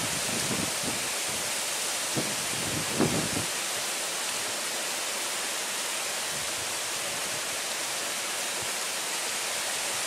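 Steady hiss of heavy typhoon rain, with a few low gusts of wind buffeting the microphone in the first few seconds, the strongest about three seconds in.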